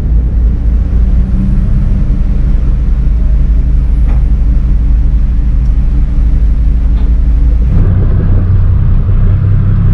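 Tugboat's diesel engines running with a steady, loud low drone, heard from inside the wheelhouse. About eight seconds in, the sound changes abruptly to the engine heard from the open deck, rougher and with more hiss over it.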